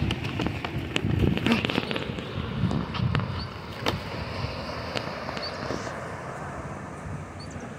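Wind buffeting the phone's microphone, with scattered crackles and pops over a steady rush of noise.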